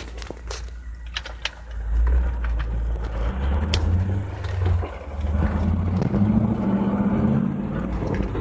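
2001 Pontiac Trans Am running, with a low rumble, a few sharp clicks early on and a steady low drone that comes in about three seconds in and grows stronger near the middle. The drone is the kind of rear-end noise being chased after both rear axle shaft bearings were replaced.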